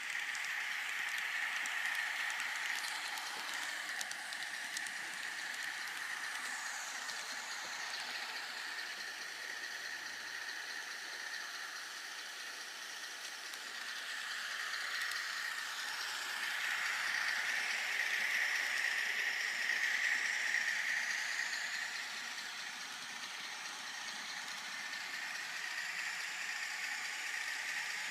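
Model train DCC sound decoder in a Con-Cor Union Pacific M-10000 streamliner, playing a rattling engine sound through its small speaker. The sound swells louder about halfway through and then eases off again.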